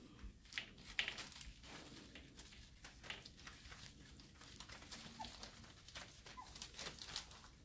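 Faint sounds of 4.5-week-old Airedale Terrier puppies playing on a blanket: small scuffles and clicks of paws and bodies moving, with a couple of short, high puppy squeaks in the second half.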